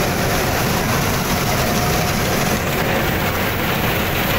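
Combine harvester running steadily while cutting paddy, heard from on the machine: a loud, even mechanical din from the engine, reel, cutter bar and threshing works, with a faint steady whine.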